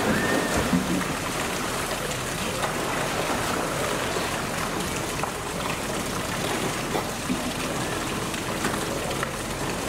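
Polar bear splashing into a pool as it dives, loudest in the first second, followed by a steady rush of churning water.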